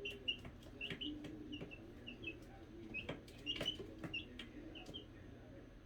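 Two-week-old chicks peeping: many short, high chirps repeating a few times a second, with softer low trills underneath and scattered faint clicks.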